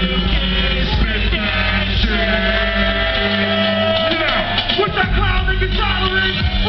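Live hip-hop played loud through a concert PA: a backing track with a steady heavy bass and a rapper's voice over it.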